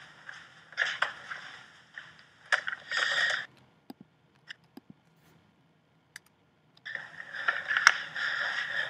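Audio of handheld camera footage playing back: rustling handling noise with scattered knocks and clicks. It cuts out for about three seconds midway, leaving only a few isolated clicks, then the rustling resumes.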